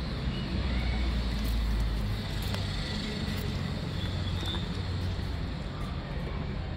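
Low rumble of road traffic, heaviest in the first two seconds as a vehicle goes by, with a few faint clicks of cats crunching dry kibble.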